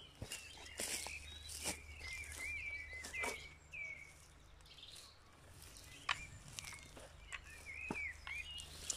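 Small birds chirping in the woods, with footsteps and rustling on dry leaf litter and a few sharp knocks and clicks as someone walks up and sits down on a plastic chair.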